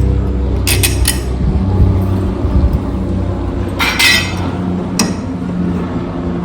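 Light metallic clinks and taps from small door-lock and handle hardware being handled and fitted. There are a few separate clicks, the loudest about four seconds in with a brief ring.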